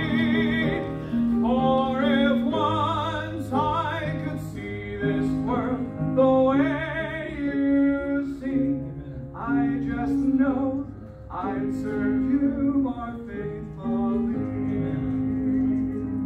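A man singing solo in a full, operatic style with marked vibrato, phrase after phrase. Behind him is an instrumental accompaniment of long held notes.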